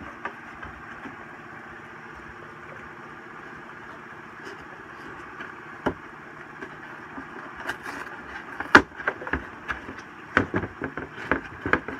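Cardboard packing insert and a metal detector shaft section being handled and worked loose, giving a scatter of sharp clicks, knocks and scrapes, mostly in the second half, over a steady mechanical hum.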